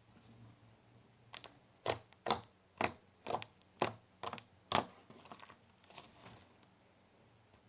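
Hardened, brittle glue-and-toothpaste slime being worked by hand, giving a series of about eight sharp crackles and snaps over three and a half seconds, then a few softer ones: the sign of slime that has dried out and breaks instead of stretching.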